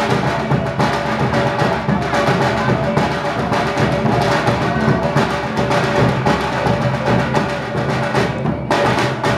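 Music with fast, dense drum and percussion strokes over a held note.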